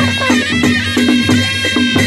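Nepali panche baja band playing a folk dance tune: the shehnai's (sanai's) nasal, double-reed melody held over rhythmic drum and cymbal strokes, about four a second.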